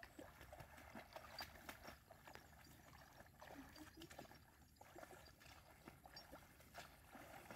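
Faint outdoor ambience, close to silence, with scattered light clicks and rustles at irregular intervals.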